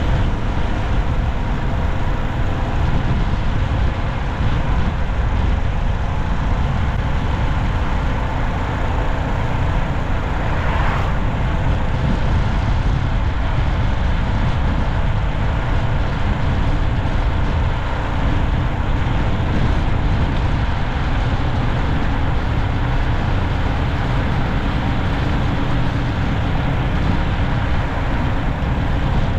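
Steady road noise of a car driving along a city street: tyre and engine rumble with a faint steady hum, and a brief swell about eleven seconds in.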